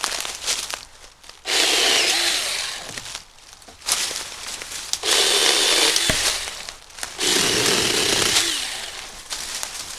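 Small 6-inch battery-powered mini chainsaw running in three bursts of a few seconds each as it cuts through privet branches, its electric motor whining under load, with brush crackling between the cuts.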